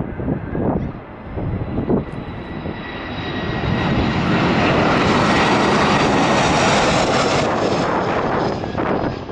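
Airliner passing close, its engine noise with a steady whine building from about three seconds in, loudest through the middle and easing off near the end. Gusts of wind buffet the microphone in the first couple of seconds.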